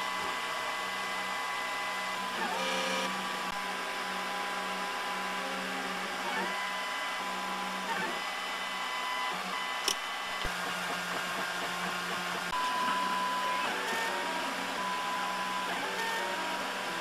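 A 3D printer running: its stepper motors whine in steady tones that glide to a new pitch every few seconds, over a constant hiss and hum. One sharp tick about ten seconds in.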